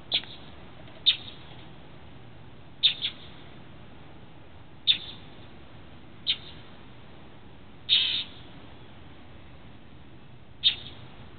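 Northern mockingbird giving short, sharp alarm calls, about eight of them at uneven gaps of one to two seconds, one near two-thirds of the way through drawn out a little longer. The calls are the bird scolding and mobbing a cat.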